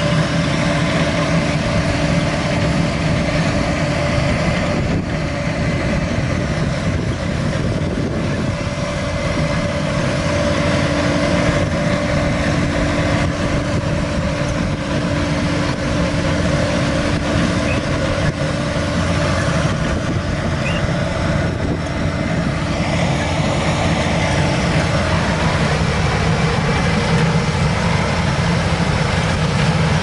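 AVR Puma 4.0 self-propelled potato harvester at work lifting potatoes: its diesel engine and harvesting machinery running steadily at working load.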